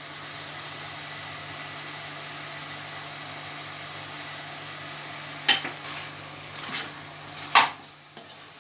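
Chicken pieces frying gently in oil with a steady sizzle, then a metal spoon stirring them and clattering against the pan three times in the last three seconds.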